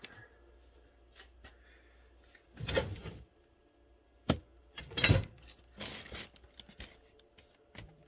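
Someone rummaging through car parts in search of a part: scattered rustles and knocks, with a sharp knock about four seconds in and a burst of rustling and clatter just after.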